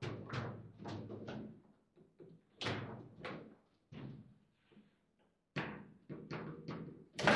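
Table football in play: the ball and the rod-mounted figures knocking sharply at an uneven pace, with a pause of about a second midway and the loudest knock near the end.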